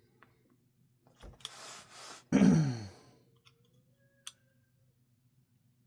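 A man breathes in deeply and lets out a long voiced sigh that falls in pitch, followed by a light click.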